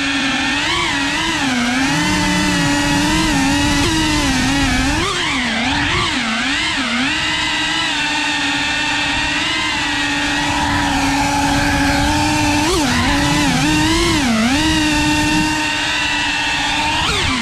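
FPV quadcopter's brushless motors whining at close range, the pitch swinging down and up again and again as the throttle changes while it manoeuvres.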